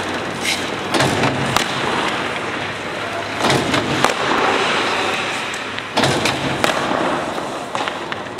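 Hockey shots against a goalie: several sharp knocks at uneven spacing as sticks hit pucks and pucks strike the goalie's pads, over steady rink noise.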